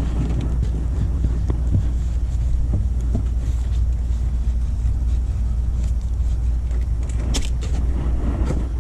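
Steady low rumble with a few faint metal clinks and knocks, two sharper ones near the end, as the plugged wheel is put back on.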